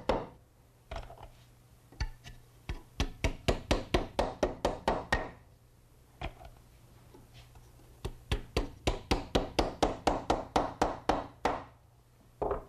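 Wooden mallet tapping short wooden splines into routed slots along a board's edge: two runs of quick, light knocks, about four a second, with a few single taps between.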